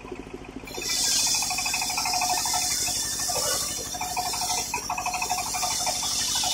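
Circular sawmill blade biting into a teak beam about a second in, then ripping through it with a loud, steady hiss over the low, even throb of the motor driving the saw.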